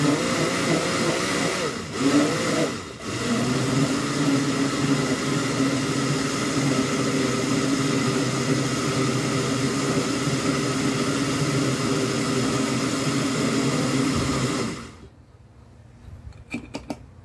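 Electric countertop blender running, blending cantaloupe into a shake. The motor briefly drops out twice near the start, then runs steadily and switches off about fifteen seconds in, followed by a few faint clicks.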